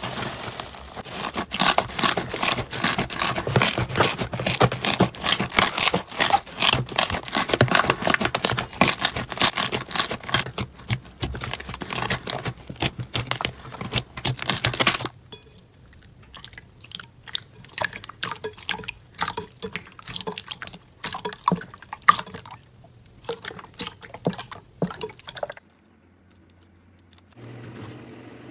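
Slime being squeezed and kneaded by hand, making a fast run of wet clicks and pops. About halfway through the pops thin out to a sparser, slower squelching, then fade to quiet near the end.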